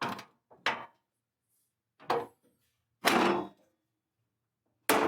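Several separate knocks and clunks of hands-on work on a lawn mower. Two short ones come in the first second, one about two seconds in, a longer rough clatter lasting about half a second at about three seconds, and a loud one near the end.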